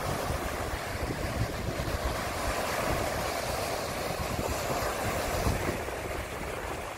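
Rough surf breaking continuously on a pebble beach, with wind gusting over the microphone as a fluctuating low rumble.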